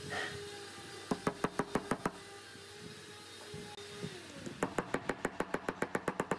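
Claw hammer tapping glued wooden dowels down into their holes: a quick run of about eight light taps about a second in, then a longer, faster run of taps from about four and a half seconds on.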